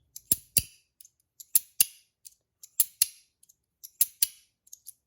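Free-floating slider fidget (Wanwu Reactive Shield) slid back and forth, its metal parts snapping into place with sharp clicks. The clicks come in quick pairs, four pairs about a second apart.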